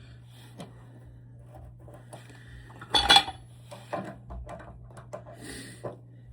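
Metal hand tools and small parts clinking and rattling as they are handled, with one louder clatter about three seconds in, over a faint steady low hum.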